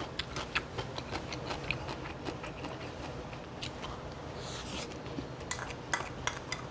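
Close-up eating sounds: a metal spoon clicking against a small bowl and mouth clicks of chewing, with a short airy breath about four and a half seconds in and a few sharper clicks near the end.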